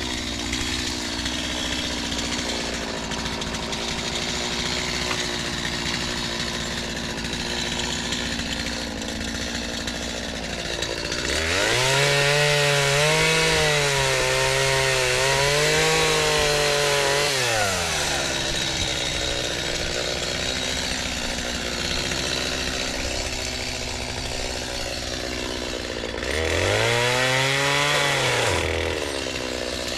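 Two-stroke chainsaw running at idle, revved up about a third of the way in and held at high speed for about six seconds with its pitch wavering, then dropping back. A second, shorter rev comes near the end.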